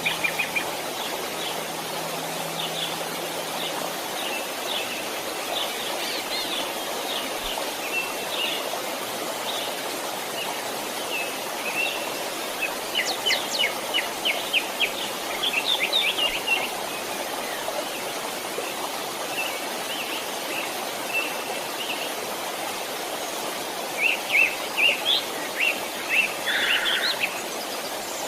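Many small birds chirping and calling over a steady rush of flowing water. The chirping comes in busier flurries about halfway through and again near the end.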